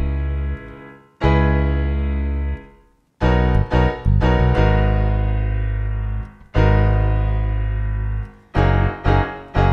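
Background music on a keyboard: held chords that start sharply and fade away, alternating with a few short stabbed chords, with brief breaks between them.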